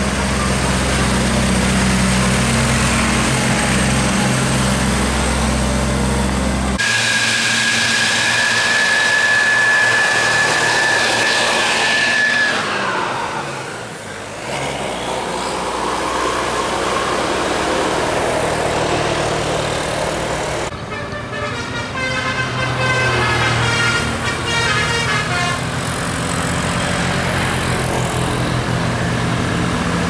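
Tour buses passing on a road: low engine rumble, then a long steady air-horn note that drops in pitch near the middle as the bus goes by, and later a quick run of musical air-horn notes (a telolet horn tune) over the engine noise.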